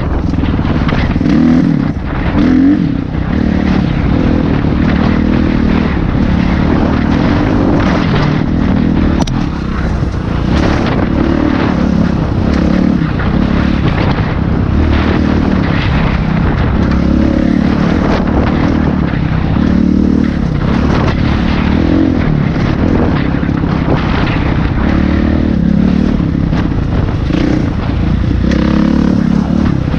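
Dirt bike engine running along a rough trail, its revs rising and falling every second or two with the throttle, over frequent short knocks and rattles from the rocky ground.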